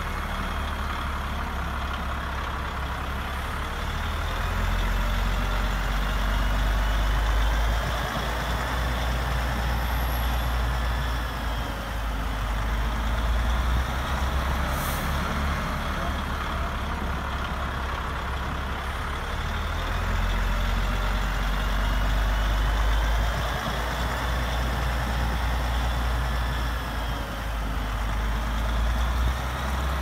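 Radio-controlled model construction trucks running: a steady low rumble, with a faint motor whine that slowly rises and falls in pitch.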